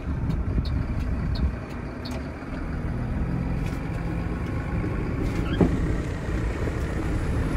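BharatBenz 4228R truck's six-cylinder diesel engine running steadily as the truck drives off at low speed. A few light clicks in the first two seconds and one short, sharp chirp a little over five seconds in.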